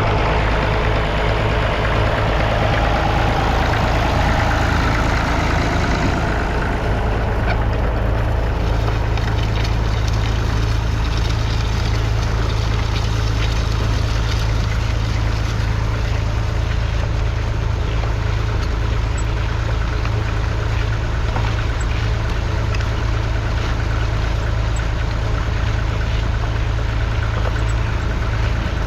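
1962 Massey Ferguson 35's 2.5-litre three-cylinder diesel engine running steadily with a deep, even note. A brighter rush of noise fades out after about six seconds.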